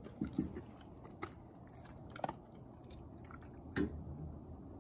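Newfoundland dog crunching kibble from his bowl: irregular, sharp crunches a second or so apart, the loudest near the end.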